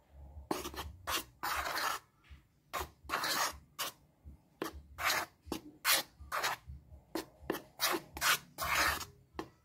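Metal spoon scraping and rubbing against a plastic bowl while stirring dry tapioca starch and cocoa powder, in short scratchy strokes about two a second.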